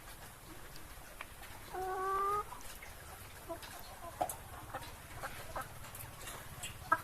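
Chickens clucking, with short scattered calls and one longer, slightly rising call about two seconds in, over a low steady hum.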